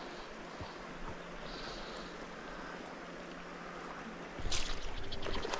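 Shallow stream water running over a riffle, a steady rushing. A little over four seconds in, a louder crackling, splashy noise close to the microphone starts up.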